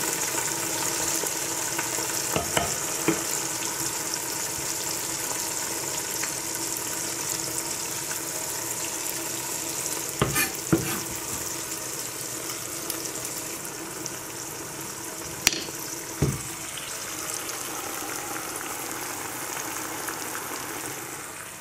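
Eggs and tomato slices frying in oil in a pan: a steady sizzle, with a handful of short knocks and growing a little quieter near the end.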